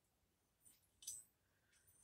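Near silence with two faint metallic clicks, a little over half a second and about a second in, from clutch parts of a moped engine being handled.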